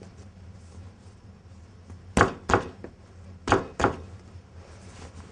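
Hands slapping and pressing baguette dough down onto a wooden worktop during shaping: four sharp slaps in two quick pairs, the pairs a little over a second apart.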